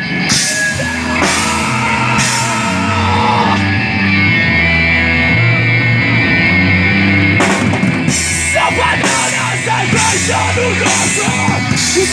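A rock band playing live with drum kit, electric guitar and bass, in an instrumental stretch between sung lines. The cymbals drop out for a few seconds in the middle and come back about seven and a half seconds in.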